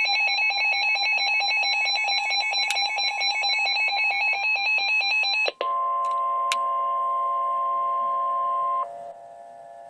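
NOAA Weather Radio emergency alert tones. A rapidly pulsing electronic alert sounds for about five and a half seconds. It gives way to a steady tone near 1 kHz, the 1050 Hz warning alarm tone, which cuts off after about three seconds and leaves a faint steady hum.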